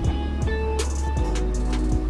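Background music with a beat: deep kick-drum hits that drop in pitch, a steady bass line and sharp snare-like hits.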